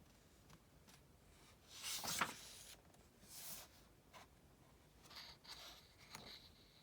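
Paper rustling as a book page is turned: one short swish about two seconds in and a softer one a second later, with faint handling clicks and light rustling near the end.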